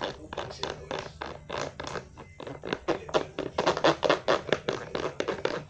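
A utensil stirring thick slime mixture in a bowl, with quick taps and scrapes against the bowl. The strokes speed up and grow louder about halfway through, to several a second.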